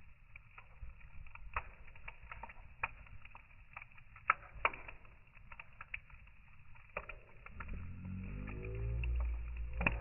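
Wood fire crackling in a metal fire bowl, with sharp pops scattered through. About three-quarters of the way in, a low droning tone rises in pitch and grows louder, becoming the loudest sound.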